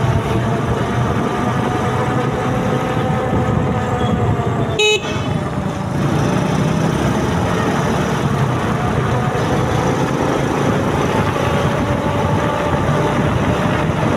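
Motorcycle engine running under way with wind and road noise, its pitch slowly rising and falling with speed. A short vehicle horn beep sounds once about five seconds in.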